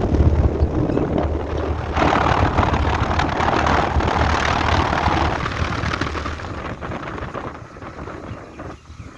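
Carrier central air conditioner's outdoor condensing unit running: a steady low hum under the rush of its fan, which grows louder and hissier about two seconds in and eases off again after about five seconds.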